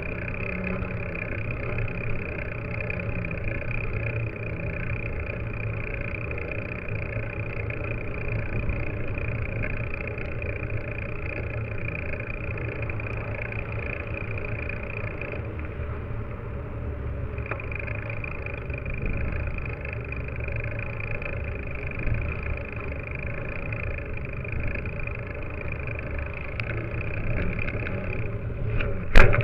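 Riding noise picked up by a camera on a mountain bike's front fork: the knobby front tyre rolling steadily on pavement, with road traffic passing alongside. One sharp knock just before the end.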